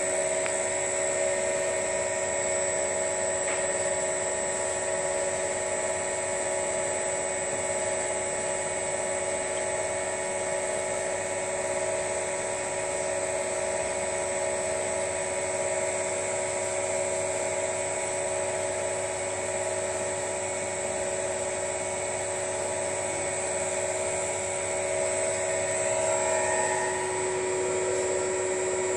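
Dikmaksan DMS 500 cold-press screw oil press running steadily while pressing walnuts: a continuous motor and gearbox whine made of several held tones, which shift slightly near the end.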